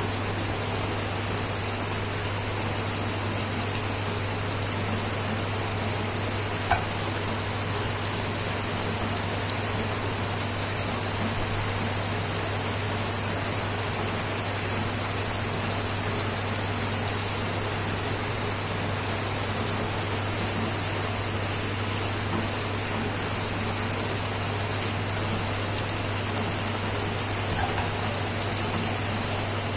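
Dry fish curry simmering in a non-stick pan, the gravy bubbling and sizzling in a steady patter, over the induction cooktop's constant low hum. A single sharp click about seven seconds in.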